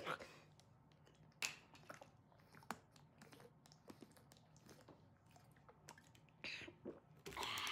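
Near silence with a few faint clicks and quiet mouth sounds as a plastic sports-drink bottle is handled and drunk from.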